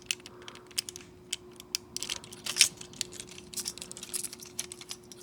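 Small plastic model kit parts clicking and clacking as they are handled and fitted together, an irregular run of light, sharp clicks.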